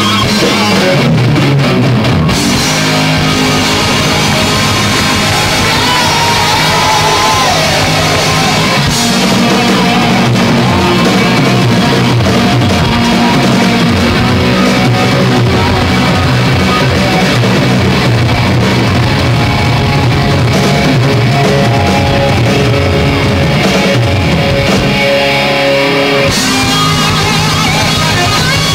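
Live rock band playing loud: electric guitars over a drum kit, without a break.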